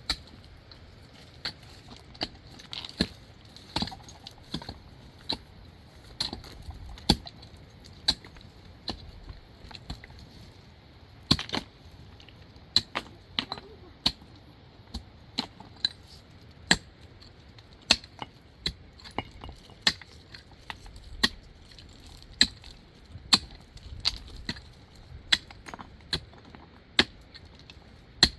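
Stone being struck with a hand tool, as in shaping or setting stones for a wall: sharp knocks about once a second, some coming in quick pairs.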